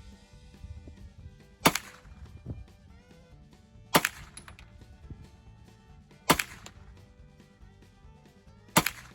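Hi-Point 995 9mm carbine firing four single shots, one roughly every two and a half seconds, over background music.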